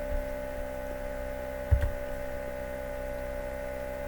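Steady electrical hum with several steady overtones, and a brief low thump a little under two seconds in.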